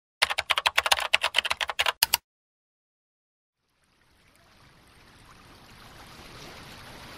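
Intro animation sound effects: a rapid run of sharp, typing-like clicks lasting about two seconds, then a pause, then a rushing hiss that fades in and grows steadily louder.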